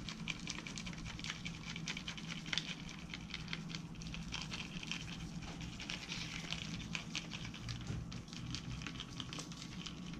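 Dry BBQ rub shaken from a plastic shaker bottle, its granules pattering onto a raw whole chicken and the glass baking dish in a continuous spray of tiny ticks.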